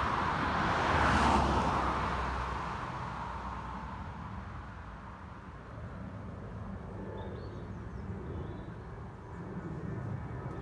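A road vehicle passing, loudest about a second in and fading away over the next couple of seconds, leaving a steady low outdoor rumble.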